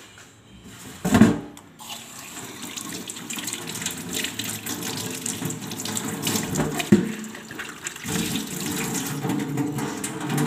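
Water running from a tap into a sink, starting about two seconds in, with a sharp knock just before it.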